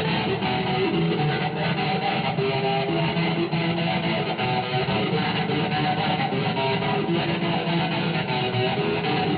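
Electric guitar music, played steadily.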